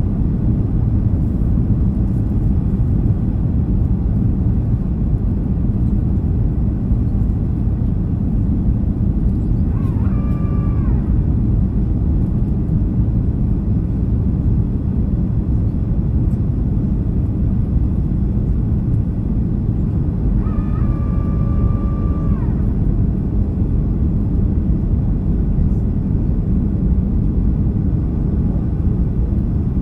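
Cabin noise inside a Boeing 737-300 on approach: a steady low rumble of its CFM56 engines and the airflow over the airframe. Two brief high tones with overtones sound over it, a short one about a third of the way in and a longer one about two-thirds in.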